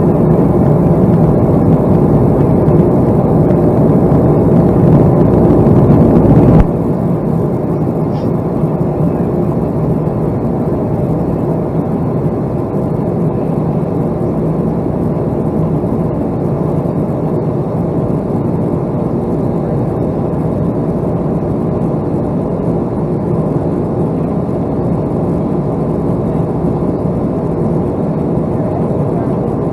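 Steady jet aircraft noise with a hum of several steady tones. It drops abruptly about six and a half seconds in and carries on at a lower level.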